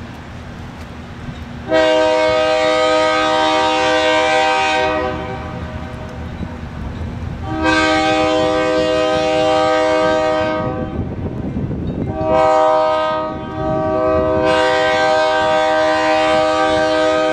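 Air horn of a train led by ALCO diesel locomotives sounding two long blasts, a short one, then a long one, the standard warning for a grade crossing. The low rumble of the locomotives' diesel engines runs underneath.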